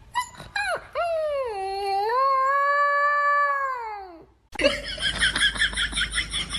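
A dog howling: a few short yips, then one long howl of about three seconds that dips, rises, holds and falls away. It is followed by a fast, even run of high chirping pulses, about five a second.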